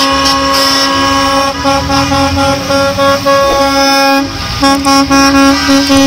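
School bus horns honking in long held blasts, with a short break about four seconds in, over the low rumble of the buses driving past.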